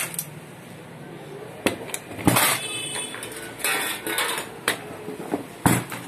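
Irregular sharp metal knocks and clanks, with a short rattle in the middle, as a sewing machine head is handled and tipped over onto its side on a metal workbench among loose tools and parts.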